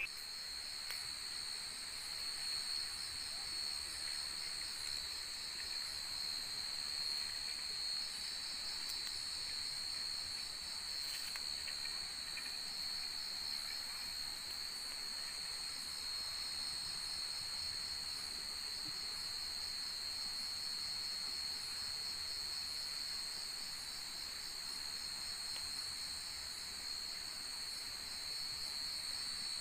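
Nighttime chorus of crickets and other insects: a steady, high-pitched trilling that goes on without a break.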